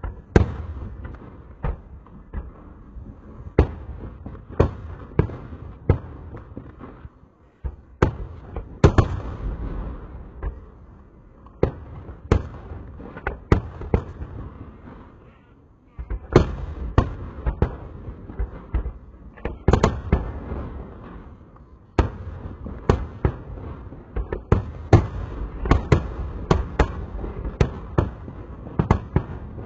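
Fireworks display: aerial shells bursting in quick succession, sharp bangs several a second over a low rolling rumble, with short lulls about seven, sixteen and twenty-two seconds in before the bangs pick up again.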